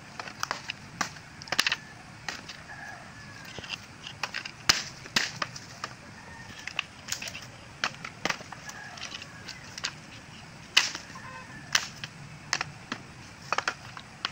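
Machete chopping dry firewood: a string of sharp, irregular cracks and knocks as the blade strikes and splits the wood, about one or two a second.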